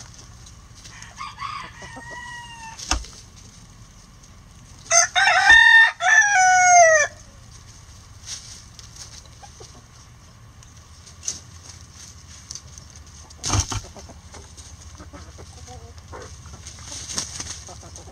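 A rooster crows once, loud, about five seconds in, the crow lasting about two seconds. Before it comes a softer hen call, and a few sharp taps follow later, over the quiet murmur of the flock.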